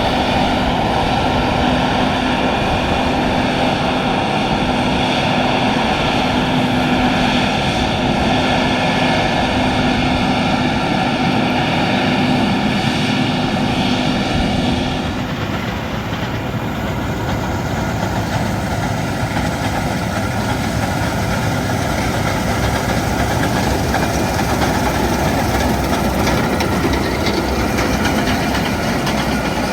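Case IH 6160 Axial-Flow combine harvesting wheat: its 8.7-litre diesel engine and threshing machinery run steadily under load. A steady hum in the sound drops out about halfway through, and the machine noise carries on with a slightly different character.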